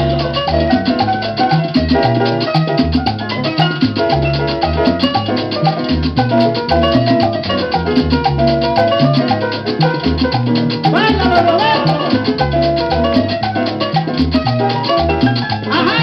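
Cumbia music played from a vinyl record on a Sony LBT-A195 hi-fi system: an instrumental passage with a steady bass line and percussion, no singing.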